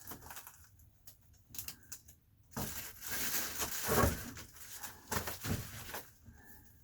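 Foil-faced bubble insulation (Reflectix) and tape being handled against metal ductwork: crinkling and rustling, loudest for about two seconds in the middle, with a few light knocks and clicks.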